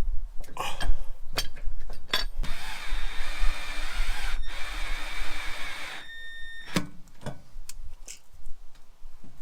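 Power drill running for about three and a half seconds with a brief break partway, between a few sharp clicks and knocks of hardware being handled.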